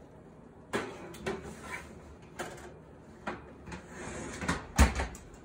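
Metal baking sheet being slid into an oven: a series of clanks and scrapes against the oven rack, with the loudest thump near the end.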